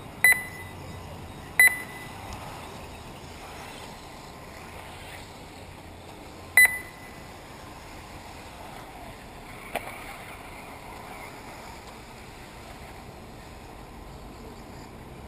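Three short, loud electronic beeps from a race lap-timing system: two about a second and a half apart, then a third about five seconds later, with a fainter click later on. Under them is a steady outdoor background hiss.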